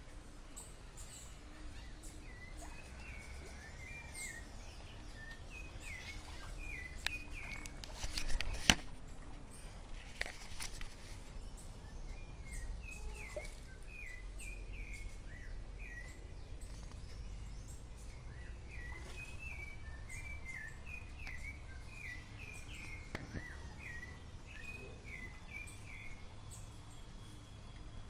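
Giant otters giving short, high chirping calls in quick clusters, over a background hiss. A few sharp knocks come between about seven and ten seconds in.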